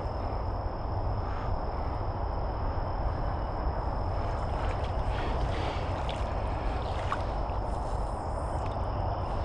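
Water swishing and sloshing steadily around a person's legs as they wade through a shallow creek, with low wind rumble on the microphone.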